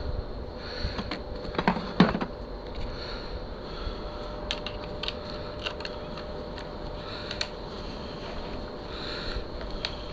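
Small metal parts and hand tools clicking and clinking while the handlebars and their clamps are refitted to the Honda CRF450's top triple clamp, with two louder knocks about two seconds in.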